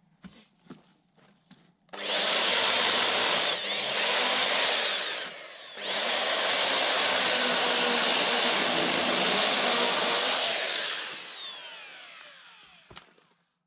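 Motor-driven power tool spinning up to a steady high whine, cutting out briefly and spinning up again, then winding down with a long falling pitch as it coasts to a stop. A few small clicks come before it starts.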